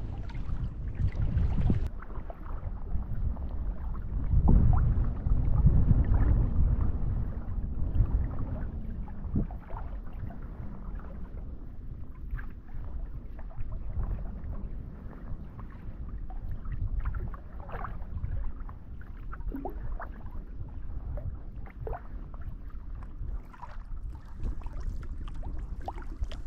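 Small waves lapping and splashing against the hull of an inflatable kayak under way, in irregular little splashes, with wind rumbling on the microphone. The wind is heaviest about four to seven seconds in.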